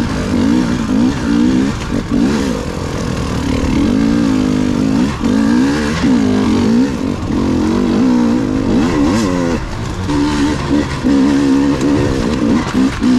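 Enduro motorcycle engine running as the bike is ridden, its pitch rising and falling over and over as the throttle is opened and closed.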